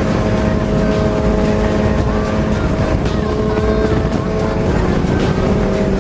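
Suzuki Bandit 650's inline-four engine running at a steady cruise, buried under heavy wind rumble on the microphone. The engine note dips slightly about five seconds in.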